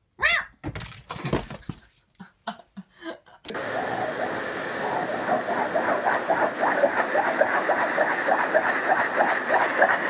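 Running water splashing steadily into a metal dog-bathing tub, with quick irregular splashes as the dog laps at the stream. It starts suddenly about three and a half seconds in. Before it come a short rising-and-falling cry and a few light knocks.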